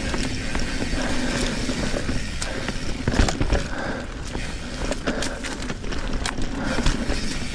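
Trek Fuel EX 7 mountain bike riding down a narrow, twisty dirt singletrack: steady tyre and trail noise with frequent sharp knocks and rattles from the bike over bumps.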